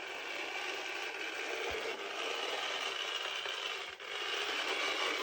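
HO-scale Jouef electric model locomotive running along the track: a steady whirring of its small motor and gear drive with wheels rubbing on the rails, now driving the wheels again through a new silicone drive band. The sound drops briefly about four seconds in.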